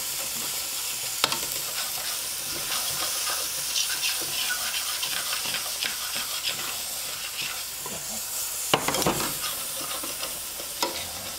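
Bell peppers and white wine sizzling in a hot stainless sauté pan while a utensil stirs and scrapes the browned chicken bits off the bottom to deglaze it. A steady sizzle with scraping, and two sharp knocks, one about a second in and a louder one late on.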